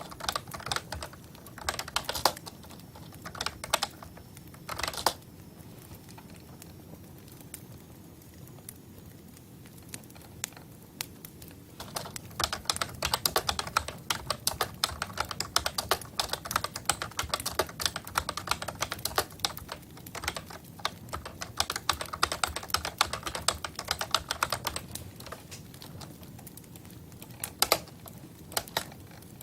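Typing on a computer keyboard: a few scattered keystrokes, then a long run of fast, continuous typing through the middle, then a few more keystrokes near the end.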